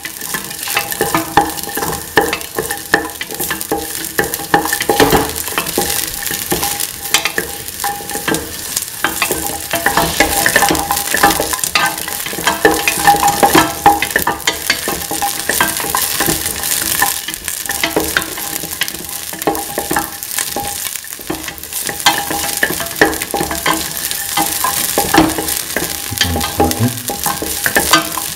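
Shallots and garlic cloves sautéing in a little oil in a stainless steel pan, a steady sizzle, while being stirred, with many small clicks and scrapes of the utensil and the pieces against the metal.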